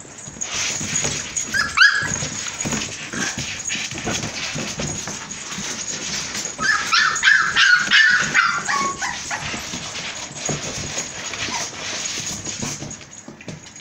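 Four-week-old pit bull puppies whining and yipping, with a short high whine about two seconds in and a longer falling whine near the middle, over scuffling and mouth noises as they jostle and chew at hand-fed raw chicken gizzards in a plastic tub.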